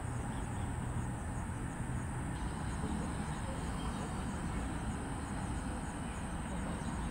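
Outdoor ambience: insects trilling steadily high up, with faint chirps repeating a few times a second, over a low steady rumble.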